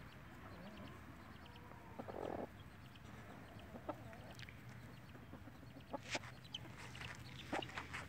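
Mother hen clucking softly, with scattered short calls from the hen and chicks, a few louder ones near the end. A brief scratchy rustle of dirt about two seconds in as she dust-bathes.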